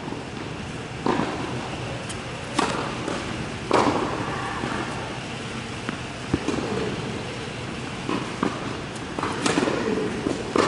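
Tennis ball being bounced and struck with a racket in serve practice on an indoor hard court: a handful of sharp impacts spread a second or two apart, each echoing in the large hall, the loudest a little under four seconds in.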